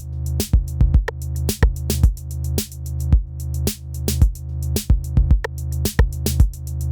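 Electronic background music with a steady drum-machine beat over a sustained low bass.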